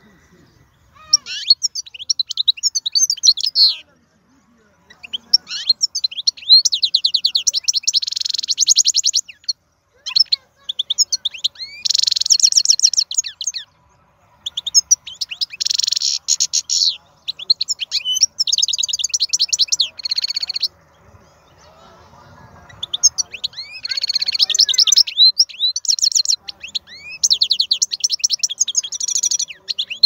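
Wild-caught European goldfinch singing: rapid twittering and buzzy trills in phrases of a few seconds, separated by short pauses, the longest about two-thirds of the way through.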